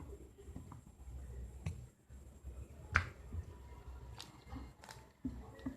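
Glossy slime being squeezed and pressed, giving a few irregular sharp clicking pops as air pockets burst. The loudest pop comes about three seconds in.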